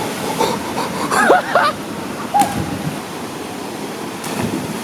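Waterfall's rushing water as a steady hiss, with people's voices calling out briefly about a second in and again a little later.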